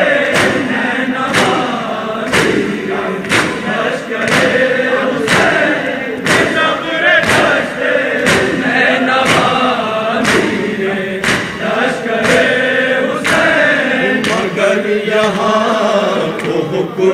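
Group of men chanting a Shia noha (Urdu lament) together, with chest-beating (matam) strikes keeping a steady beat about once a second.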